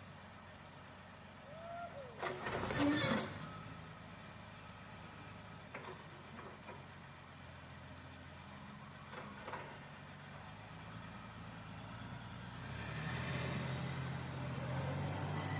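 A heavy truck's engine running low and steady, with a short loud burst of noise about two and a half seconds in and a few lighter knocks. The engine grows louder from about thirteen seconds in.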